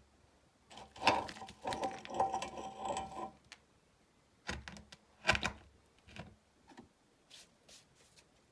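Meat grinder being taken apart: the metal auger and cutting knife scrape and rattle against the grinder head as they are pulled out, followed by a few sharp knocks as metal parts are set down on a plastic tray, the second knock the loudest.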